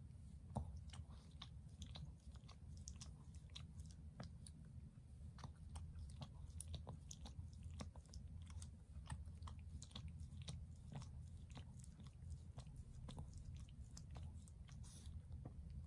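A Shih Tzu licking and smacking its lips, an irregular string of small mouth clicks over a low, steady hum.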